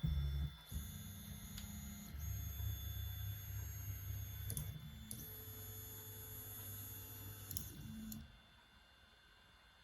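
Stepper motors of a LABISTS X1 Mini 3D printer running, giving steady whining tones and a low hum that shift in pitch every second or two with small clicks as the moves change, then stopping about eight seconds in.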